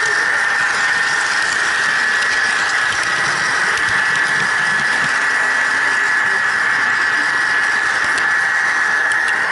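Model train running steadily: a constant high whine from its electric motor over a rattling hiss of wheels on track, picked up close by the camera riding on the train.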